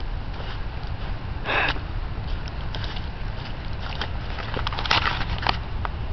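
Footsteps crunching in fresh snow as the camera is carried along, with a short sniff about a second and a half in. A cluster of small crunches and crackles comes in the second half, and a steady low rumble runs under it all.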